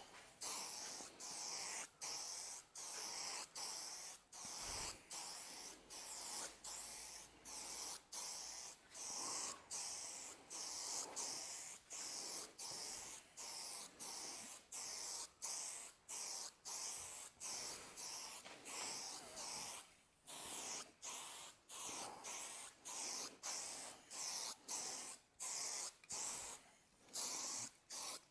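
Aerosol spray-paint can (rattle can) sprayed in short, rapid bursts with brief gaps, about one and a half a second, misting on a light second coat of paint.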